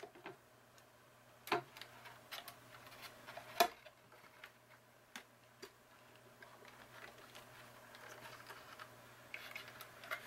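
Light clicks and taps of hands unplugging a small plastic wire connector and handling a hoverboard's plastic top shell, with two sharper clicks in the first few seconds, over a faint steady hum.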